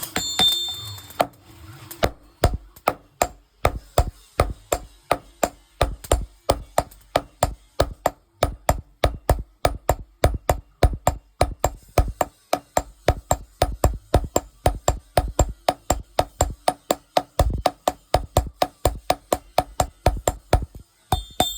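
Steady hammer blows on hot steel over an anvil, forging a rubber-tapping knife blade. Sharp, evenly spaced strikes at about three to four a second, each with a short metallic ring. They begin about two seconds in and pause briefly near the end.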